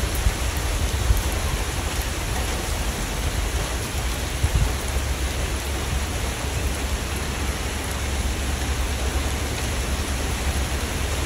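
Steady rain: an even hiss of falling water with a low rumble underneath.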